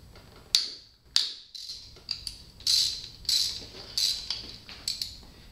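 Socket ratchet on a Suzuki GS550 cylinder head nut, clicking in short runs one after another as the handle is swung back and forth to loosen the nut.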